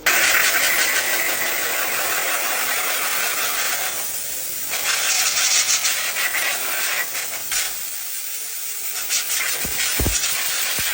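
Loud hissing noise that starts abruptly, with scattered clicks and rattles through it.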